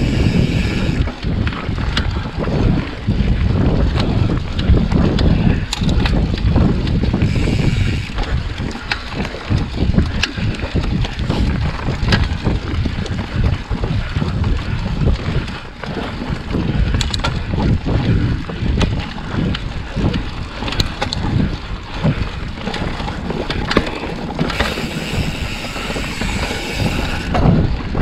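Wind buffeting the microphone while riding a Trek Fuel EX 8 full-suspension mountain bike on a dirt trail: a dense low rumble, with scattered sharp clicks and rattles from the bike. A brighter hiss rises briefly twice, about seven seconds in and near the end.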